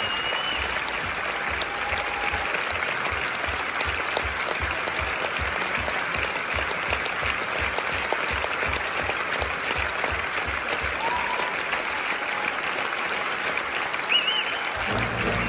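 Large theatre audience applauding steadily, with a low beat about twice a second underneath. Music strikes up just before the end.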